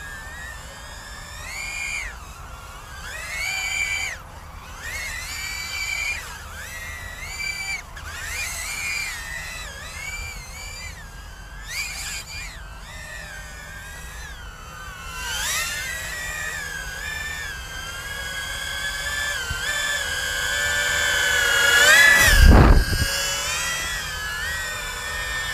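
High-pitched whine of a Diatone GT R239 2-inch micro quadcopter's brushless motors and guarded propellers, the pitch swinging up and down with each burst of throttle. It grows louder toward the end and peaks with a brief rush of air as the drone passes close, about 22 seconds in.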